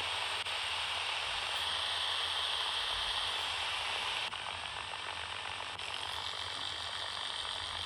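Steady static hiss from a HamGeek ATS200 portable receiver's speaker, tuned to the long-wave band with no station coming in; the hiss shifts slightly in level a few times.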